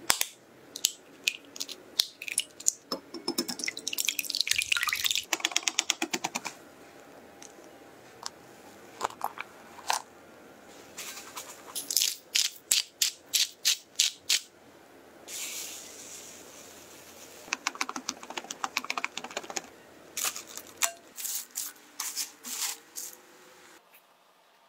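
Kitchen preparation sounds around a glass mixing bowl: eggs tapped and cracked against the glass, then runs of quick clinks and taps in the bowl. Near the middle, a salt shaker gives a regular run of quick clicks, and the sounds fall almost quiet as a knife cuts into a block of butter at the end.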